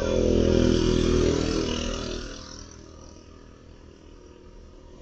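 A road vehicle passing close by: engine and tyre noise swelling to a peak in the first second or two, then fading away by about three seconds in.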